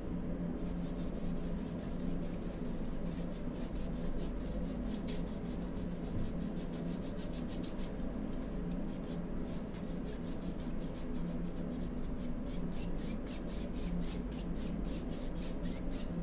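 Paintbrush scrubbing back and forth on a primed canvas, blending acrylic paint across the sky: rapid, rhythmic brush strokes with a short pause a little past the middle.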